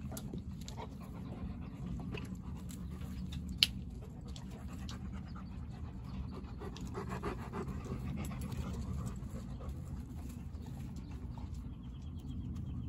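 Dogs panting, with one sharp click about three and a half seconds in.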